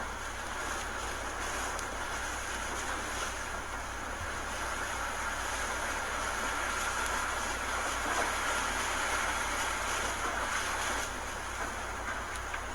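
Hurricane-force wind blowing steadily, swelling in a stronger gust for a few seconds midway before easing back.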